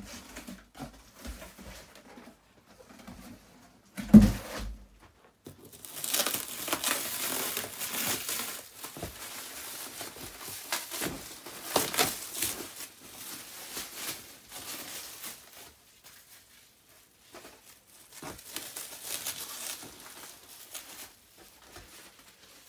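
Plastic stretch wrap and bubble wrap crinkling and tearing as a wrapped cardboard box is opened and its contents pulled out, in long crackling stretches. A single sharp thump about four seconds in is the loudest sound.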